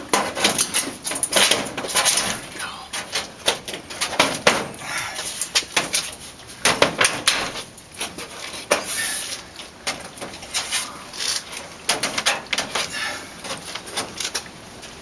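Irregular hammer knocks and metallic taps, with some scraping in between: the protruding old 16d nails in the door frame being hammered over and bent down.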